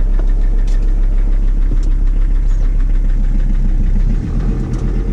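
Van engine running, heard from inside the cab as a steady low drone while the van is driven off; the level dips slightly about four seconds in.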